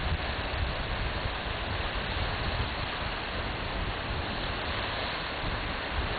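Wind blowing on the microphone: a steady hiss over a low, gusting rumble.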